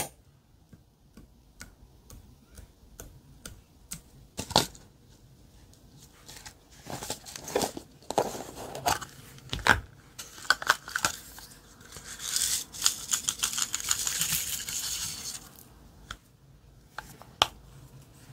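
Plastic makeup packaging being handled and opened: scattered clicks and taps of plastic on plastic, then a few seconds of dense crackling, rasping noise like a seal or wrap being torn off. A few sharp clicks follow near the end.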